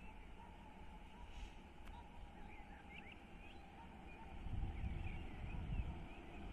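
Faint low rumble of an electric multiple-unit passenger train approaching the platform, swelling louder about four and a half seconds in. Short high chirps come and go over it.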